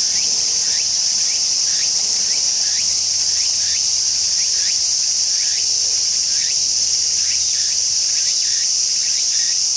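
Tsukutsukuboshi cicada (Meimuna opalifera) singing: a loud, steady high-pitched buzz, with short rhythmic phrases repeating about every half second.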